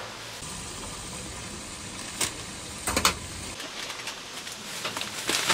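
Steady street background noise with a few short clicks and rustles from takeaway packaging being handled: once about two seconds in, a pair around three seconds, and again near the end.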